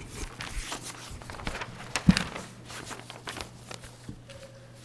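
Footsteps and rustling handling noises, with a louder thump about two seconds in.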